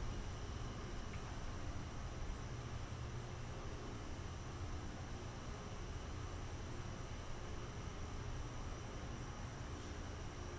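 Crickets chirping in a steady, high-pitched, evenly pulsed chorus over a low, steady rumble.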